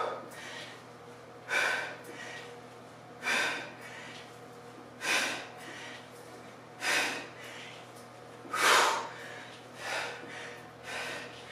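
A woman's sharp, forceful exhales through the mouth, one about every two seconds in time with one-arm kettlebell swings. The last two breaths are weaker and come closer together.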